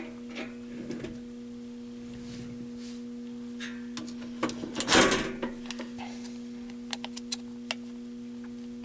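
Steady low electronic hum, one tone with a couple of overtones, under handling noise. There are knocks, a burst of rustling about five seconds in, and a few sharp clicks near the end.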